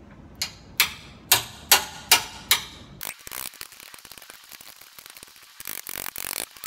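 Six sharp hammer blows on a wrench, about two and a half a second, breaking loose a badly rusted bumper bolt. From about three seconds in comes rapid ratchet clicking as the freed fastener is turned off.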